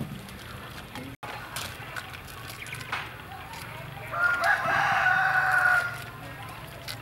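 A rooster crowing once, a single long call of almost two seconds starting about four seconds in.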